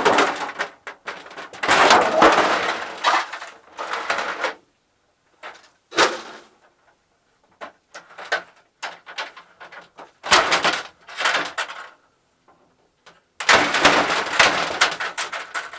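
Thin plastic sheets from inside a flat-screen TV crinkling and rustling as they are pulled away and handled, in several long bursts, with one sharp click about six seconds in.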